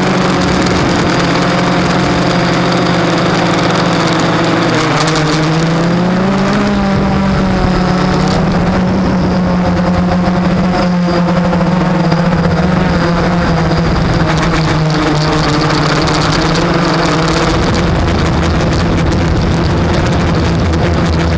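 Blade 350 QX quadcopter's four brushless motors and propellers whirring in flight: a steady hum whose pitch rises and falls about five to seven seconds in as the throttle changes, and shifts again near the end.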